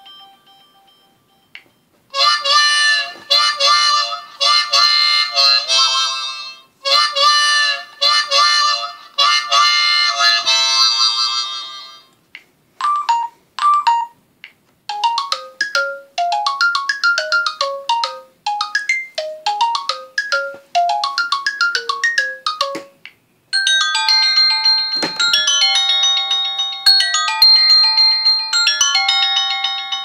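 LG K10 LTE built-in ringtones playing one after another: several short electronic melodies, each repeating its phrase, with brief gaps between tones. One has quick descending runs of notes.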